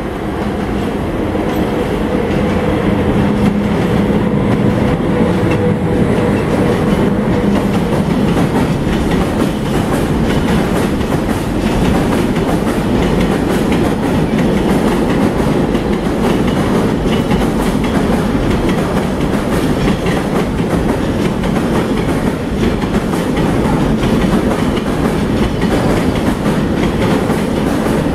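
Freight train of Talbot hopper wagons hauled by an ET22 electric locomotive rolling past, the wagon wheels clattering steadily over rail joints. There is a steady hum from the locomotive for the first several seconds. The noise swells over the first two seconds, then stays level.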